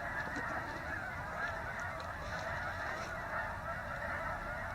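A large flock of geese honking, a dense continuous chorus of many overlapping calls.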